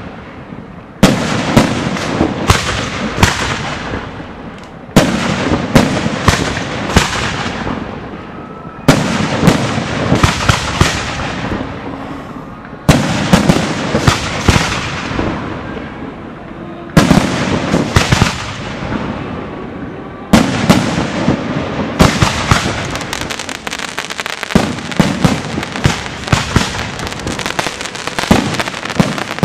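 Aerial firework shells bursting, a loud bang about every four seconds, each followed by a cluster of sharp crackles that dies away. About two-thirds of the way in, it turns into dense, unbroken crackling.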